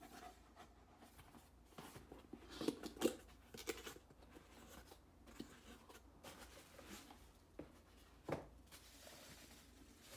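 Quiet handling of parcel contents and packaging: scattered light rustles, taps and clicks, busiest a couple of seconds in, with one sharper tap near the end.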